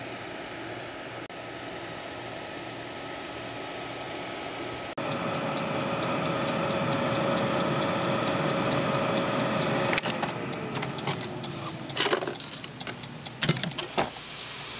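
Countertop halogen turbo oven's fan running with a steady hum. About ten seconds in it winds down with a falling pitch, followed by a few knocks as the glass lid is lifted off.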